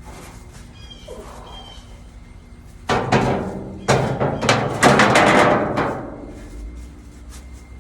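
Hammer blows on a sheet-metal muffler cap, a run of ringing strikes about three seconds in that dies away about three seconds later, as the cap is beaten wider to fit around the muffler.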